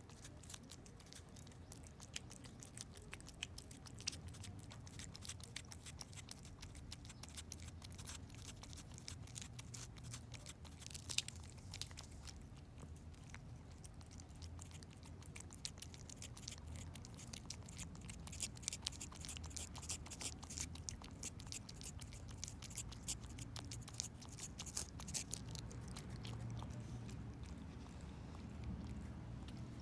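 A cat licking and chewing a Churu lickable paste treat: a steady run of small, soft, wet clicks and smacks, with one louder click about eleven seconds in.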